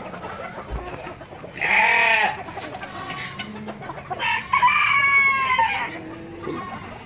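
Roosters crowing in a flock of fancy chickens: a short loud call about two seconds in and a longer crow from about four seconds in, with clucking in between.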